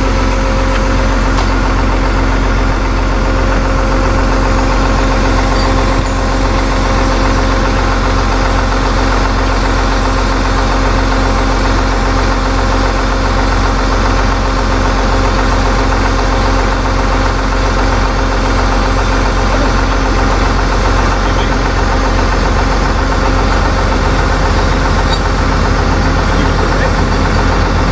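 Tow truck engine idling steadily, with a clattering knock in its tone.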